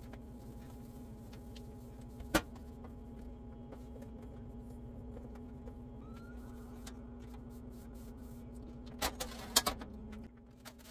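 Steady low hum throughout, with a sharp click about two seconds in. About nine seconds in come several sharp knocks and clatters as the hinged cooktop of an electric range is lifted open.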